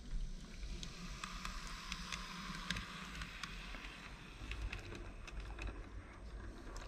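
Minitrix N-scale BR 218 model diesel locomotive, which has no built-in sound, running quietly on its track: a soft hiss of motor and wheels, louder in the middle, with scattered light clicks.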